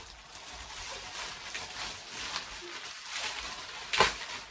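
Plastic wrapping on a freshly unrolled hybrid mattress crinkling and rustling as it is pulled open, with one sharp, louder rustle near the end.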